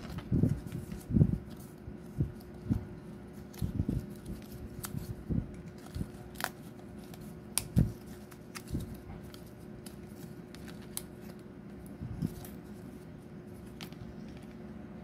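Stiff printed cardstock being folded and handled: irregular light knocks, rustles and a few sharp crackles of the card, frequent at first and sparser in the second half.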